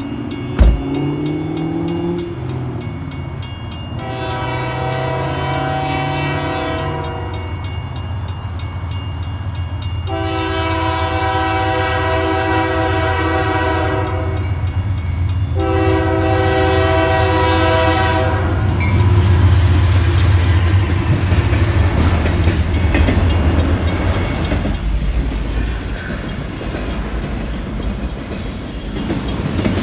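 Diesel freight locomotive's horn sounding three long blasts for the grade crossing, with the crossing bell ringing under it. The locomotive then rumbles past loudest near the twenty-second mark, followed by the steady rumble and clatter of autorack cars rolling over the rails.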